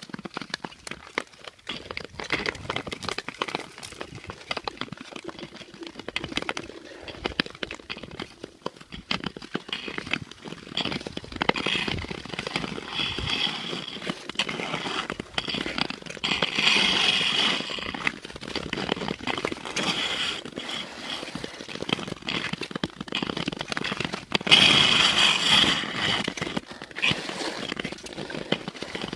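Long-distance skates scraping and gliding on natural lake ice, full of sharp clicks and crackling. There are two longer, louder hissing glides, one about halfway through and one near the end.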